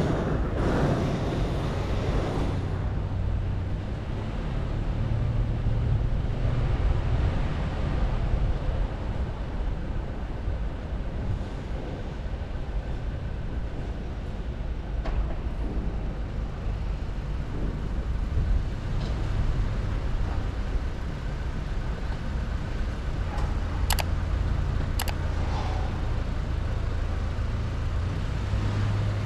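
Steady low rumble of a vehicle travelling slowly along a paved street, with road noise. Two short clicks come about a second apart near the end.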